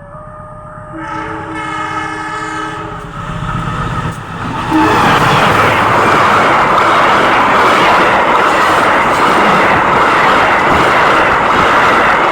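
Train horn sounding a held multi-tone chord over the first few seconds, then, about five seconds in, the loud steady rush of a train passing close by.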